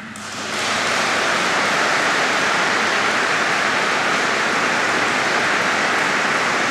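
Large audience applauding; the clapping swells within the first second, then holds steady.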